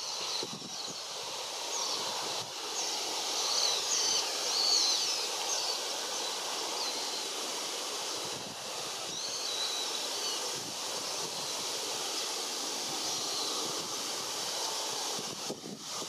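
Strong wind blowing through a bare persimmon tree, a steady rustling haze, with short high bird calls coming and going over it, several of them in quick succession a few seconds in and a few more later on.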